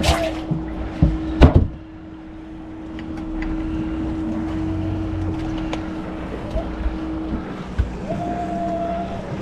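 Boat motor running steadily on the water, with a few loud knocks about a second in.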